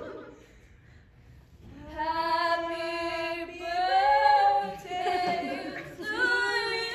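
Unaccompanied singing voices starting about two seconds in, with long held notes.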